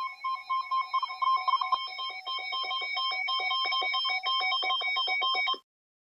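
Electronic emergency-alert tones from a radio receiver: several steady high tones pulsing rapidly, cutting off abruptly about five and a half seconds in.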